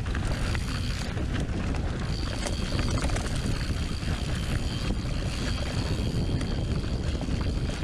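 Mountain bike descending a dirt singletrack trail: a steady rumble of tyres on dirt with scattered small rattles and clacks over rough ground, and wind noise on the microphone.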